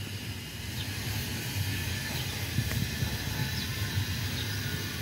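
Outdoor city-street background noise: a steady low rumble with a few faint clicks.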